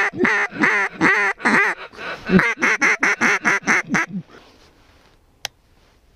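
A duck call blown in a fast string of loud quacks, about three a second, for some four seconds, aimed at ducks working the decoys. A single sharp click follows near the end.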